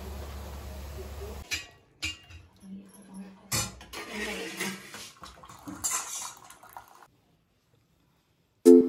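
Stainless steel pots, lids and utensils clinking and knocking, a scatter of separate clinks over several seconds, after a steady low hum in the first second and a half. Music starts right at the end.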